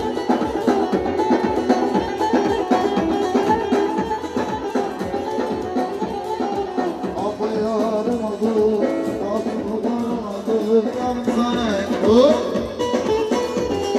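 Turkish folk dance music for a halay: a wavering melody over a steady, dense drum beat, with a brief rising sound about twelve seconds in.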